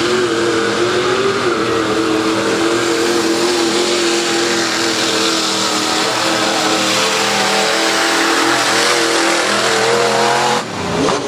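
Mud-bog Jeep's engine held at high revs as it plows through the mud pit, over a hiss of spraying mud and water. The engine note rises slightly late on, then breaks off suddenly near the end.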